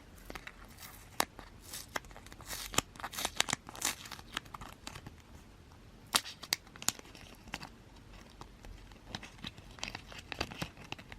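Packaging being handled and crinkled, with irregular sharp crackles that are busiest in the first half, as a photocard is taken out of its wrapping.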